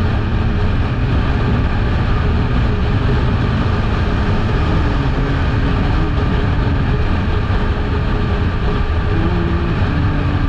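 Kawasaki Eliminator 500 motorcycle under way at a steady speed: its parallel-twin engine runs beneath a loud, steady rush of wind noise on the action-camera microphone.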